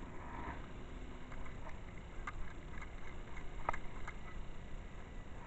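Handling rumble and rustle from a chest-mounted camera while walking with a fishing rod, with a few light clicks in the second half.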